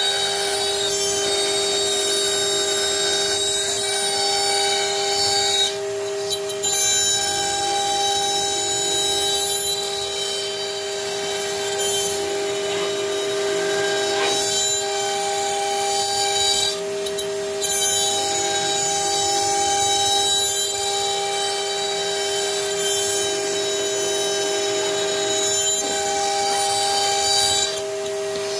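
CNC router carving wood: the spindle gives a steady whine of several held pitches over the hiss of the end mill cutting, dipping briefly three times, about every eleven seconds.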